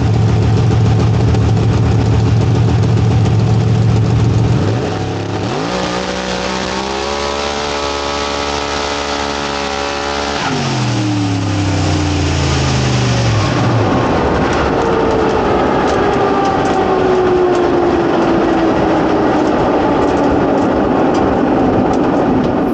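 Supercharged big-block Chevy engine of a Pro Mod Camaro, very loud: a steady low drone for the first few seconds, then the pitch climbs, holds for a few seconds and drops away. After that the engine runs on rougher, with a long high whine that slowly falls in pitch.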